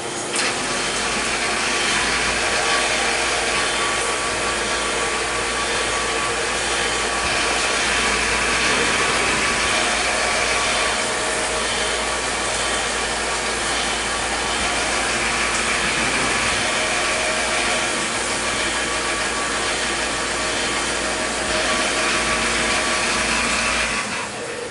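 CNC milling machine cutting a part under flood coolant: a steady spindle and cutting noise mixed with the hiss of coolant spraying. It stops about a second before the end.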